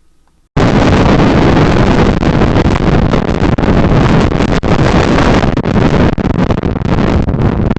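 Storm wind buffeting a trail camera's sensitive microphone: a loud, steady rush of noise that cuts in abruptly about half a second in.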